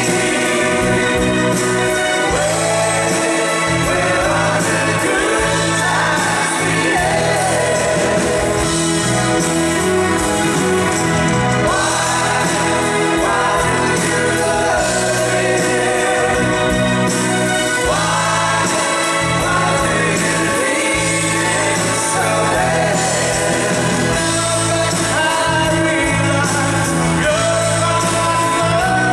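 Live band playing a song: several men's voices singing together over strummed acoustic guitars, bass guitar, piano and drums.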